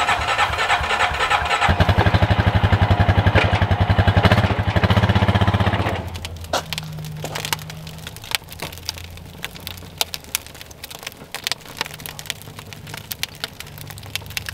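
An engine runs with a rapid, even pulsing beat for about six seconds, then drops away, leaving scattered light clicks and crackles.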